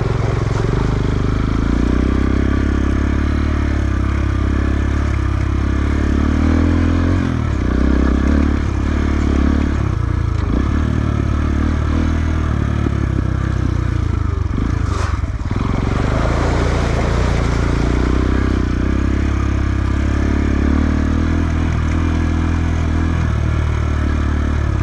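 Motorcycle engine running as it is ridden over a rough trail, its pitch rising and falling with the throttle. A single knock comes about fifteen seconds in.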